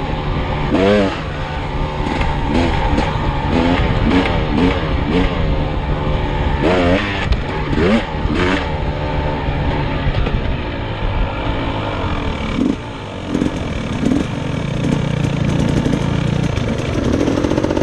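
Dirt bike engine revving up and falling off again and again as it is ridden, over a steady rush of noise. It settles to a steadier note near the end.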